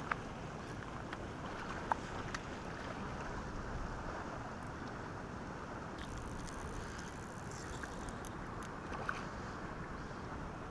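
Steady wind noise on the microphone, with a few faint clicks.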